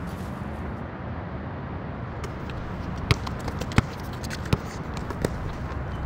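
Steady low outdoor rumble, like distant traffic. In the second half come four sharp, evenly spaced taps about two-thirds of a second apart.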